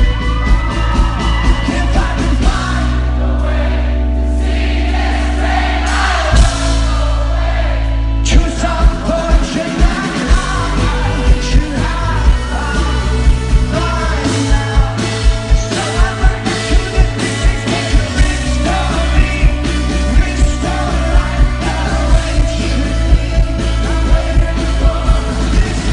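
A live rock band plays with a singer. About two and a half seconds in, the drums drop out while the band holds sustained chords. About eight seconds in, the full beat comes back in and drives on.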